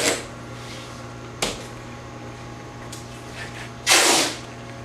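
Workshop handling sounds: a sharp click, a knock, then one short rasping stroke about four seconds in, over a steady low hum.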